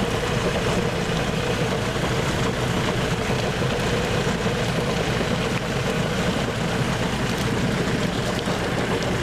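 Small engine running steadily, driving the water pump that drains the fish pond.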